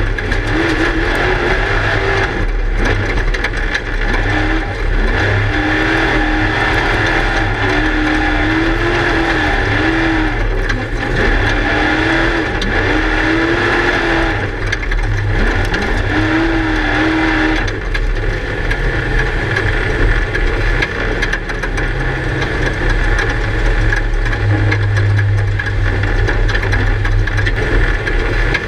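Class 1 desert race car heard from inside the car at speed. The engine revs up and eases off every second or two through the first two-thirds, then runs more steadily, over constant low rumble and road noise.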